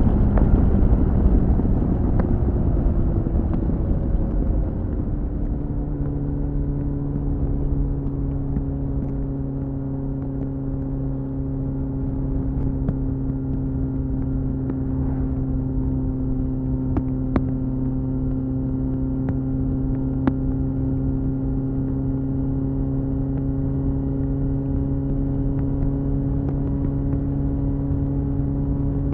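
2001 Suzuki GSF 600 Bandit's inline-four engine through a BOS slip-on exhaust. Its note falls and gets quieter over the first few seconds, then holds one steady engine speed, with a few faint ticks.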